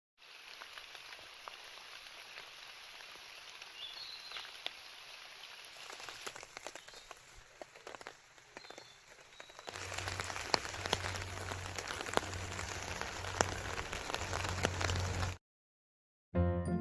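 Steady rain, with many individual drops ticking and pattering on a surface. About ten seconds in it gets louder and heavier, with a low drumming underneath, then cuts off abruptly near the end.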